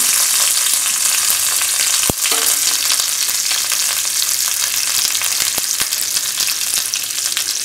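Hot coconut oil and ghee sizzling and crackling steadily in a stainless steel pan of mustard seeds, curry leaves and dried chillies, the tempering for a spiced snack. There is one sharp knock about two seconds in.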